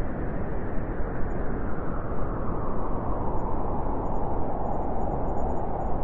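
Steady rushing of wind and water heard from the deck of a moving ship, with a low rumble underneath.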